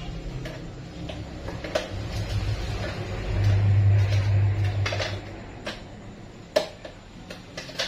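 Low hum of a small kitchen blender's motor running briefly on a thick, sticky nut mixture, swelling for about two seconds in the middle, amid clicks and knocks of the jar and a utensil.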